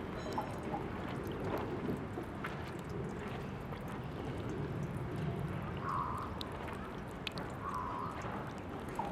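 Tap water running from a drinking-fountain faucet and splashing steadily into the basin, with small drips and ticks of water. Two short higher-pitched notes sound about six and eight seconds in.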